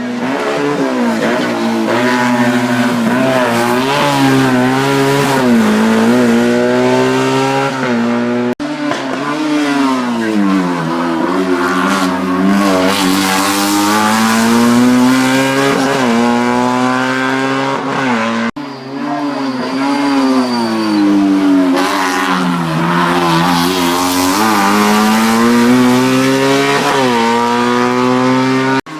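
Racing car engines at full throttle, the pitch repeatedly climbing and dropping as each car accelerates, shifts and lifts for bends. The sound breaks off abruptly twice, about every ten seconds, as one car gives way to the next.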